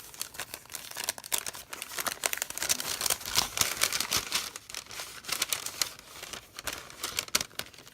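Packaging of a small DIY craft kit crinkling and rustling as it is handled and opened by hand, a dense run of irregular crackles that goes on throughout.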